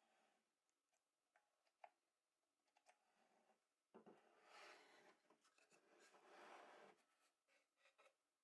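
Near silence: a few faint light clicks, then faint scratching or rubbing on a surface for about three seconds, starting about four seconds in.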